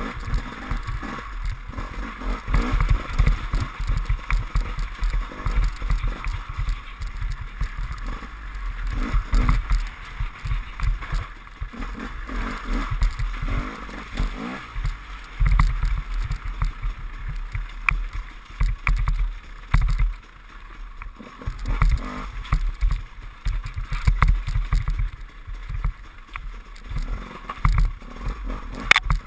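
KTM enduro motorcycle's engine running under changing throttle on a rough dirt trail. Heavy low wind rumble and frequent knocks from bumps on the bike-mounted camera sit over it, and the loudness surges and drops constantly.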